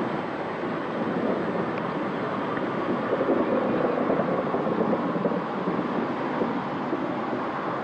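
Caledonian Railway No. 123, a 4-2-2 single-driver steam locomotive, moving slowly past close by: a steady, noisy rumble and hiss of the engine.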